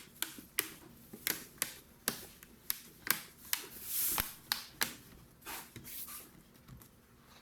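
Sharp clicks and taps from hands and small tools working on a laptop's plastic case, two or three a second. There is a brief scraping hiss about four seconds in, and the clicks grow sparser and fainter near the end.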